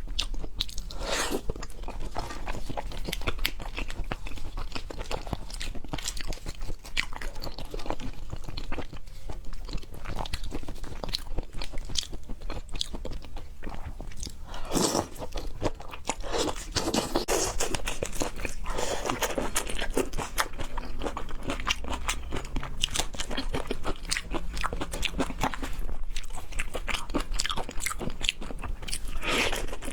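Close-miked chewing and crunching of food with the mouth: a continuous run of wet crackles and crunches with no pauses.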